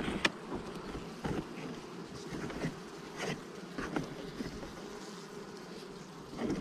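Honeybee colony humming steadily around the open hive, with several sharp scrapes and clicks of a metal hive tool scraping wax comb off the wooden frame top bars.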